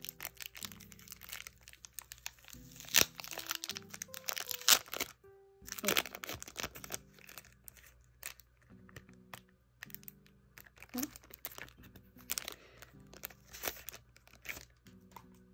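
Clear cellophane wrapping crinkling, crackling and tearing as it is peeled off a small cardboard box, with sharp crackles loudest about three and five seconds in. Soft background music with held chords plays underneath.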